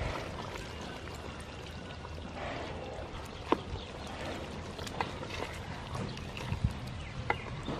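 Coconut meal being poured into the pot of chicken curry, a steady pouring hiss, with a few sharp knocks against the pot.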